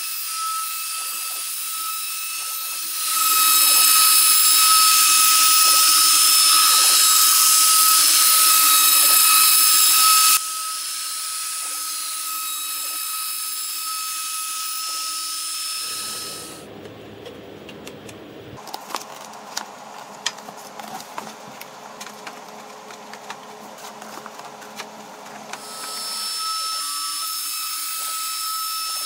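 CNC router spindle running with a steady high whine, turning an up-spiral bit to surface an oak end-grain chopping board; from about three seconds to ten seconds it is louder and rougher as the bit cuts across the wood. Near the middle the whine stops and gives way to a quieter rumble with scattered clicks for about ten seconds, then the spindle whine comes back.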